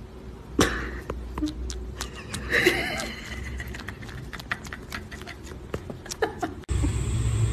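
Irregular small wet clicks and smacks of a cat suckling and chewing on a person's finger, with a short pitched vocal sound about two and a half seconds in. Near the end the clicking gives way to a steady low hum.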